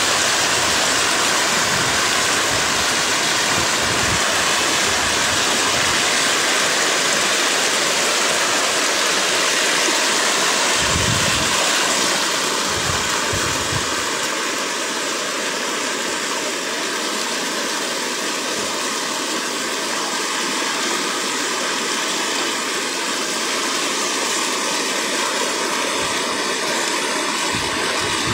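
Floodwater pouring across a road and over its edge, a loud, steady rushing of water. A few low thumps on the microphone come around the middle.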